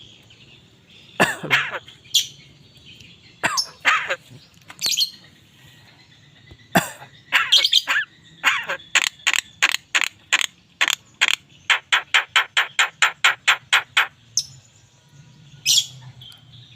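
Javan myna (jalak kebo) calling: several scattered short calls, then a fast run of short notes, about four a second for some five seconds, and one more call near the end.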